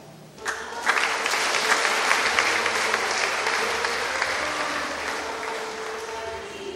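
A congregation applauding: the clapping starts about half a second in, is at its fullest soon after, then slowly dies down.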